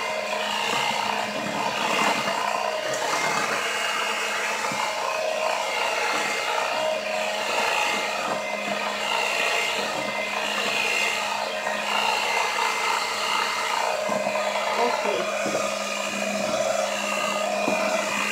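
Electric stand mixer running steadily on low speed, its beaters turning through a batter of beaten eggs, sugar and flour: an even motor hum with a steady whine.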